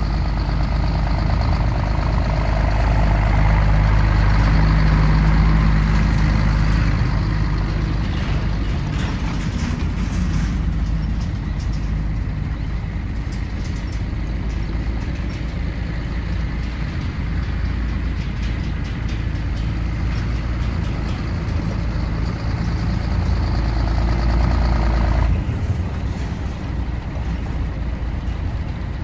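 Scania P124 8x4 truck's 12-litre straight-six diesel engine running as the truck drives, louder for a few seconds as it pulls away, then steady. About 25 seconds in, the higher part of the engine note drops off suddenly, leaving a lower run.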